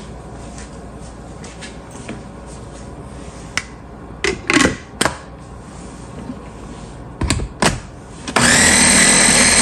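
Several plastic clicks and knocks as a food-processor lid is fitted onto its bowl, then, about eight seconds in, the electric food processor's motor starts and runs loudly and steadily, its blade grinding a mix of onion, coriander and spices into a paste.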